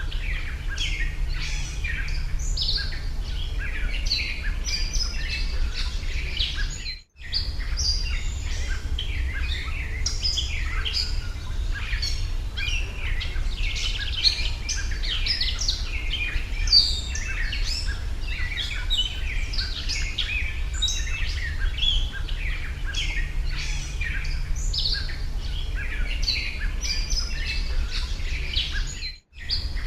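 Many small birds chirping and singing in a dense, continuous chorus over a steady low hum, broken by two brief cut-outs to silence, one about a quarter of the way in and one near the end.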